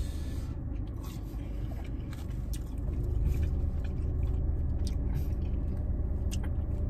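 A person chewing a fried cheese curd dipped in sauce, with scattered small clicks of biting and mouth sounds, over a steady low rumble.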